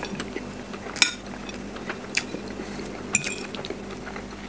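Metal fork clinking against a ceramic dinner plate as scrambled egg is scooped up, a few sharp clinks with the last ringing briefly, and quiet chewing between.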